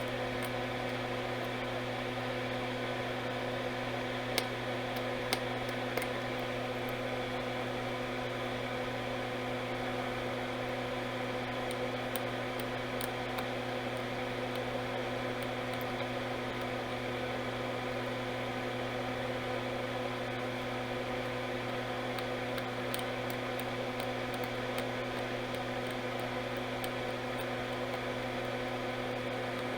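Steady electrical hum with an even buzz and hiss from bench equipment, with a few faint ticks scattered through it.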